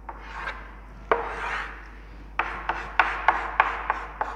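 Chalk on a chalkboard: a few longer scraping strokes as lines are drawn, then a quick run of short, sharp strokes, about six a second, as hatching is filled in.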